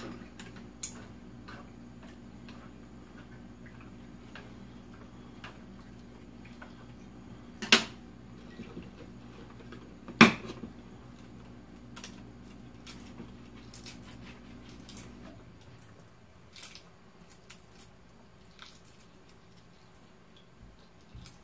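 Tableware clicking and knocking at a meal, with two louder knocks about eight and ten seconds in. Under it runs a low steady hum that stops about two-thirds of the way through.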